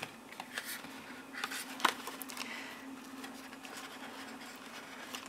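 Paper card and cardstock being handled: soft rustling and scattered small taps as a ribbon is threaded through punched holes, with one louder tap about two seconds in. A faint steady hum runs underneath.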